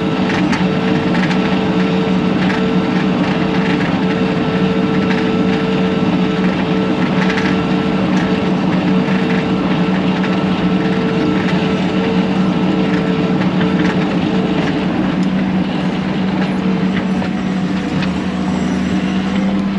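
Bobcat T630 compact track loader's diesel engine running steadily at working speed while back-dragging dirt with the bucket, with scattered clanks.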